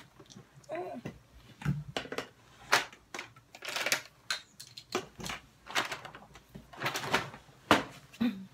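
Rummaging through makeup on a vanity: plastic cases and containers clattering and knocking in an irregular string of sharp clicks, with rustling between.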